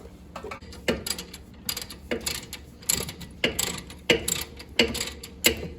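Hand ratchet wrench turning out a brake caliper bolt, clicking in short bursts about every half second to second as the handle is swung back and forth.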